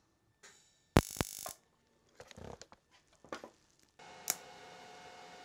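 Scattered clicks, a sharp knock and brief rustling from handling engine parts on a metal workbench, then a faint steady hum from about four seconds in.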